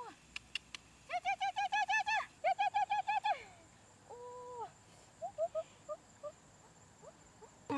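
A bird calling: two quick runs of about eight or nine evenly spaced rising-and-falling notes, then a single held note and a few short chirps.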